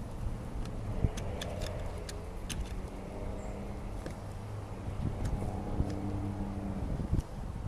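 A motor vehicle's engine running at low, fairly steady speed, with scattered small clicks and knocks over it.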